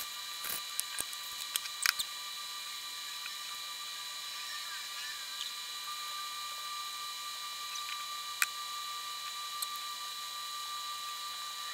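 Person eating stir-fried rice noodles with wooden chopsticks: several sharp clicks of chopsticks and tableware in the first two seconds, then soft slurping and chewing, with one more click about eight seconds in. A faint steady electrical whine runs beneath.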